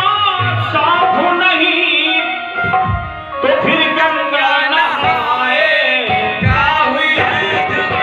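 Indian vocal music: a voice sings a flowing, ornamented melody over tabla accompaniment.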